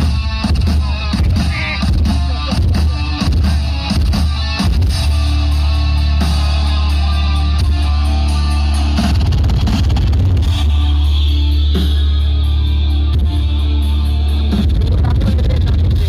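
Music with guitar and drums played loud through large outdoor sound-system speaker stacks during a sound check, with a heavy, steady bass throughout and dense drum hits in the first few seconds.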